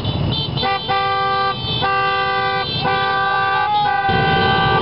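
Vehicle horns honking in a rhythm of long toots, about four in a row a little under a second apart, then a lower horn joining near the end, over the low rumble of motorcycle engines.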